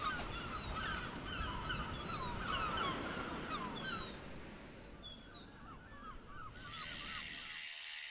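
Birds calling outdoors in many short calls that rise and fall in pitch, over a steady background hum of noise.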